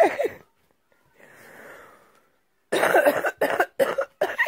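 A person's voice in a run of loud, choppy, cough-like bursts, starting a little under three seconds in, after one short vocal burst at the very start.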